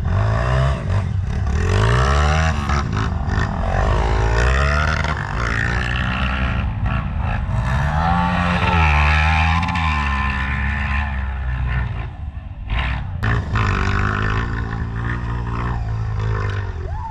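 Dirt bike engines revving up and down again and again, the pitch rising and falling in repeated swells. A couple of short sharp knocks come about three quarters of the way through.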